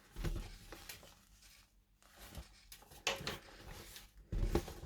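Handling noises: irregular fabric rustling and a few soft knocks as leather boxing gloves are taken out of their silk bag and turned over, in three short spells.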